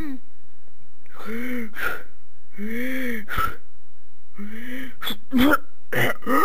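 A voice acting out mouth-to-mouth rescue breaths: a series of gasping, huffing vocal sounds, each rising then falling in pitch and ending in a puff of breath, coming quicker near the end.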